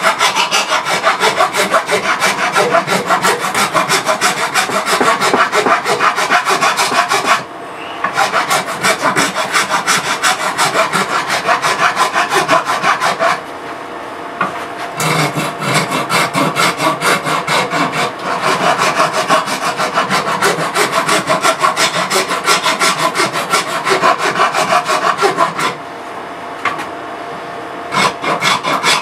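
A 4-in-1 hand rasp filing a wooden axe handle in rapid back-and-forth scraping strokes. It stops briefly a few times. The handle is being shaped to reseat the axe head on it.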